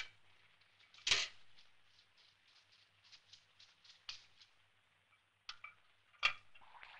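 Sharp metal knocks and clanks from a fire extinguisher and a metal pail being handled. There are two louder knocks, one about a second in and one near the end, with lighter clicks between them.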